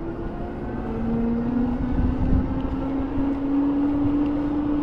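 HeyBike CityRun electric bike's motor whining under pedal assist level 4, its pitch climbing steadily as the bike accelerates. A low, gusty rumble of wind on the microphone runs underneath.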